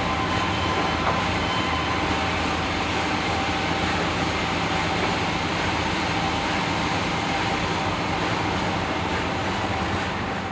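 Band sawmill running with a steady, unbroken mechanical noise and low hum.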